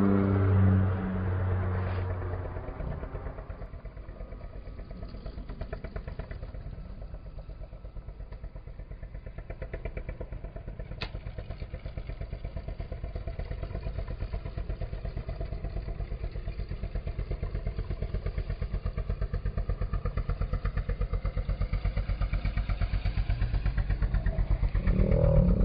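Light propeller aircraft engine droning overhead: a loud steady pitched drone at first that fades within the first few seconds, then a low pulsing engine drone that grows gradually louder toward the end.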